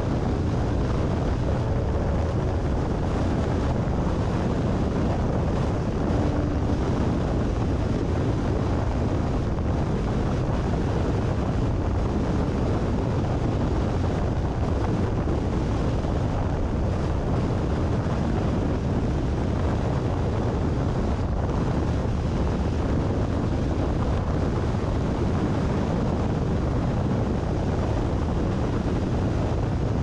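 Steady low rumble of wind and tyre noise from a car cruising at about 113 km/h, with strong wind buffeting the microphone.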